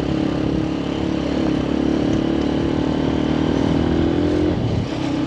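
A motor vehicle engine running steadily at an even speed.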